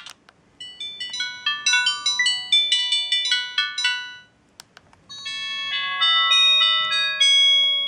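Siemens A31 mobile phone playing ringtones through its loudspeaker. A quick electronic tune with several notes at once runs to about four seconds in, then stops. After a brief pause with a single click, a second ringtone with longer held notes starts about five seconds in.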